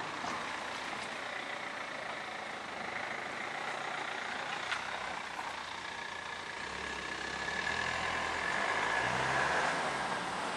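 E57 electro-mechanical air-raid siren's single steady tone, faint under a bed of wind and traffic noise, its pitch slowly sinking. A low rumble swells in the second half, and the overall sound grows louder.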